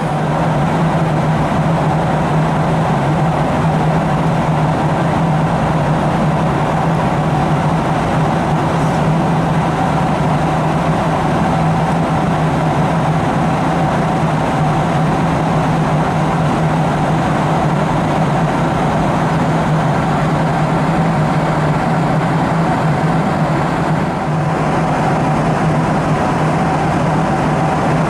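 Steady cabin noise inside a Boeing 737-700: a constant rush of engine and air noise with a low hum and a higher steady tone, easing slightly for a moment near the end.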